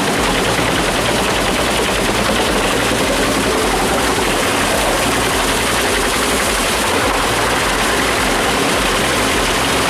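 Large drum wood chipper running under load, shredding wood: a loud, dense, continuous crackle of splintering wood over a low engine rumble.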